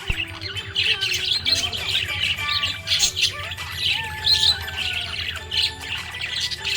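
Budgerigar chirping and chattering without pause, a rapid stream of short squawky chirps and warbling gliding notes.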